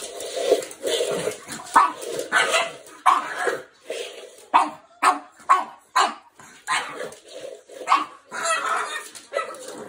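Brindle pug barking in a run of short barks, coming about twice a second in the middle.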